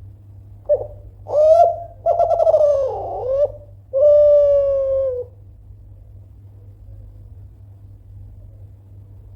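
Kelantan-strain spotted dove (tekukur) cooing: one phrase of a short opening note, a couple of burring middle notes and a long, slightly falling final coo, starting just under a second in and lasting about four and a half seconds.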